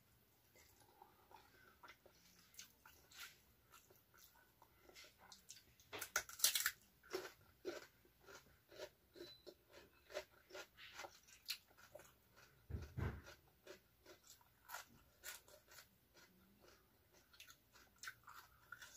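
A person chewing and crunching raw vegetables close to the microphone: irregular crisp crunches, loudest about six seconds in. A low thud about thirteen seconds in.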